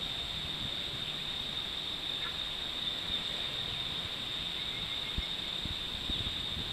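A steady, high-pitched chorus of cicadas, with a few soft low thumps of footsteps on the suspension bridge's deck in the last couple of seconds.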